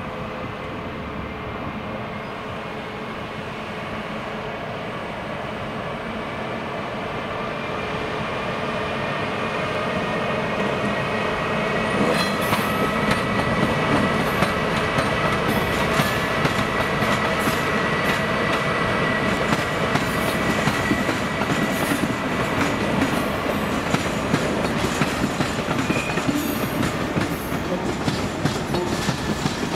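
SNCB class 18 Siemens electric locomotive with double-deck coaches passing: several steady whining tones from the locomotive grow louder over the first twelve seconds or so. From about twelve seconds in, the wheels keep clicking over rail joints and points.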